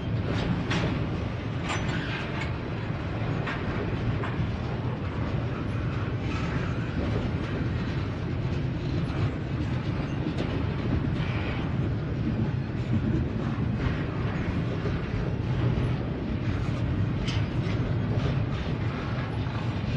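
Double-stack intermodal train of loaded container well cars rolling past on the rails: a steady rumble of steel wheels on track, with scattered sharp clicks from the wheels.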